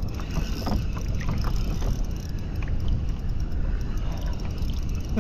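Steady wind rumble on the microphone and small waves lapping against a kayak's hull, with a few faint light ticks.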